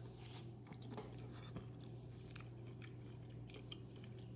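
Close-miked mouth chewing a chewy cheese-filled rice cake: soft, wet, irregular clicks and smacks over a steady low hum.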